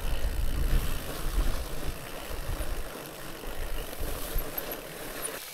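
Fat bike rolling over rough trail, with wind rumbling on the microphone. The rumble eases off after about two seconds.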